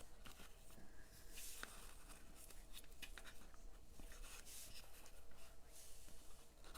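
Faint rustling and small scraping clicks of cardstock and ribbon being handled, in several short, uneven bursts.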